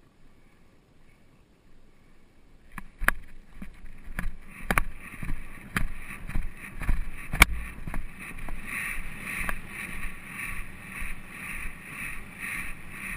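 Polo pony galloping under its rider, heard from a camera worn on the rider: a rhythmic pulsing about twice a second with the stride, with a few sharp knocks. It starts about three seconds in, after a quiet start.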